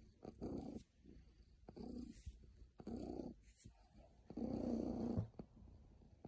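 Domestic cat purring right at the microphone, the purr swelling and fading in waves about every second and a half as it breathes in and out.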